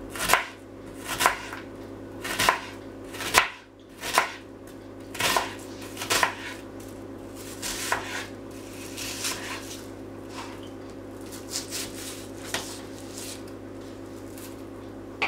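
Kitchen knife slicing an onion on a white cutting board, each cut ending in a sharp knock of the blade on the board, about one a second at first, then lighter and closer together in the second half. A steady low hum runs underneath.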